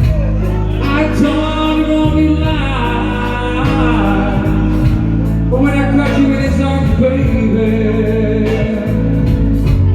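Music: a song with long sung notes over band accompaniment with a steady bass.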